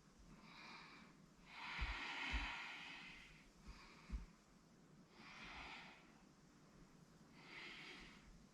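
A woman breathing audibly close to the microphone: four or five slow, hissy breaths in and out, the longest about two seconds in. A couple of faint low bumps from her moving are heard, the sharpest about four seconds in.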